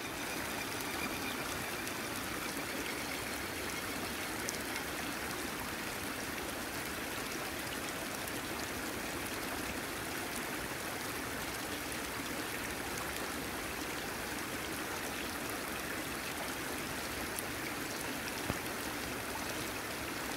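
Shallow water running steadily over grass and around rocks, a continuous rushing trickle.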